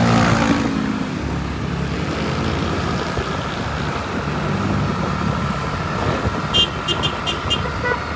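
Road traffic: a vehicle passes at the start with its engine note dropping in pitch, then steady traffic noise. Near the end comes a quick series of five short, sharp high-pitched ticks.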